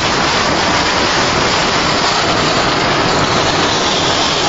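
Strong storm wind with rain during a tornado, a steady loud rushing noise with no breaks.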